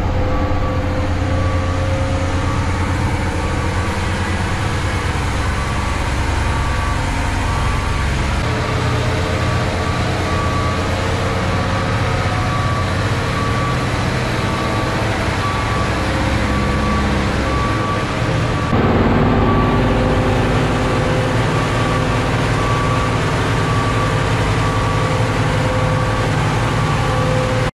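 Diesel engine of a concrete mixer truck running steadily as it drives slowly through a tunnel, heard from the cab, with a high beep repeating evenly throughout. The engine gets louder about two-thirds of the way through.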